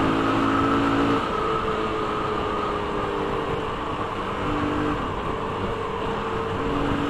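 Motorcycle engine running at a steady cruise, with steady wind and road noise from riding; the engine note shifts a little about a second in.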